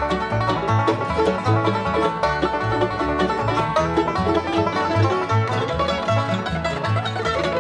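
Bluegrass band playing an instrumental break without singing: banjo, guitars and mandolin picking over a steady bass line.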